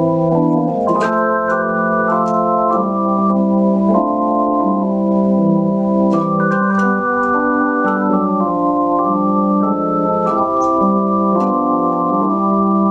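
Digital keyboard set to an organ voice, playing a slow hymn in full sustained chords that change every second or so, with a faint click at the start of many new notes.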